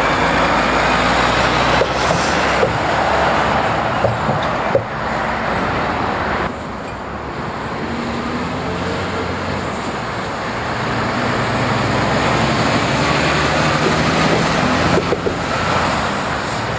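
Two articulated lorries driving past one after the other: a Volvo tractor unit pulling an empty container chassis, then a Mercedes-Benz tractor unit hauling a container trailer. Diesel engine and tyre noise swells and fades as each goes by, with a dip between them and a few sharp clanks.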